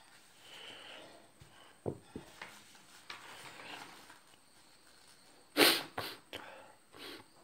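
Newspaper being handled and shifted over a drawing sheet: paper rustling with a couple of light knocks about two seconds in and one loud, sudden crackle of paper about five and a half seconds in.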